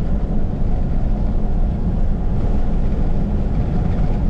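Pickup truck driving along a road: a steady low rumble of engine and tyre noise.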